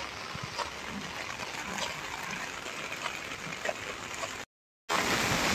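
Steady rain falling, with scattered drops splashing on pooled water. The sound cuts out for a moment near the end and comes back louder.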